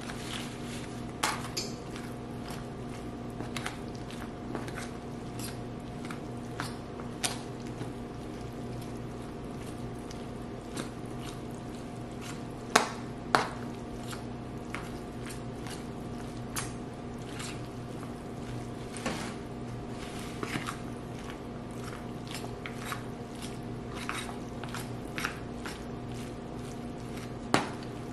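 Metal utensil stirring elbow macaroni and shredded cheese in a disposable aluminium foil pan: soft squishing with scattered clicks and scrapes against the foil, the sharpest pair about halfway through and another near the end. A steady low hum runs underneath.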